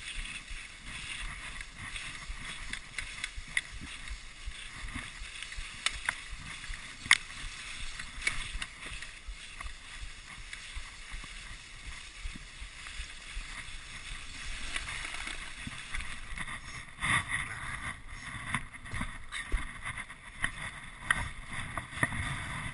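Dog sled gliding over snow: a steady scraping of the runners with a few sharp clicks and knocks from the sled, growing rougher and louder near the end.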